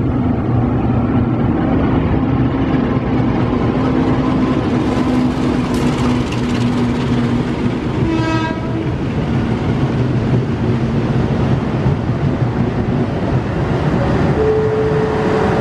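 Passenger train hauled by a diesel locomotive moving slowly along the station platform: a steady low engine drone with the rolling rumble of the coaches. A brief pitched tone sounds about eight seconds in, and another steady tone near the end.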